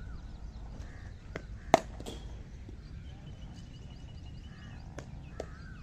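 Birds chirping outdoors, with a single sharp knock just under two seconds in and a few fainter clicks around it.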